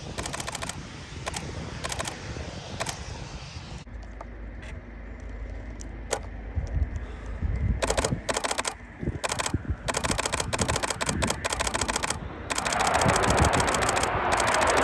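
DSLR camera shutter firing in rapid bursts close to the microphone, as continuous high-speed shooting, in several separate runs. Over the last couple of seconds the rush of an approaching Eurofighter Typhoon jet swells up and becomes the loudest sound, under further shutter bursts.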